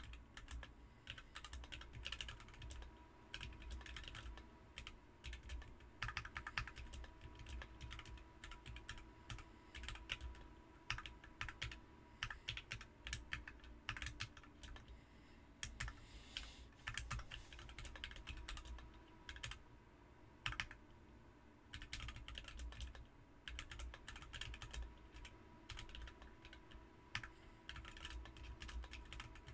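Typing test on a BM43 40% mechanical keyboard fitted with Ms Piggy switches: a fast, continuous run of keystroke clacks with a couple of brief pauses.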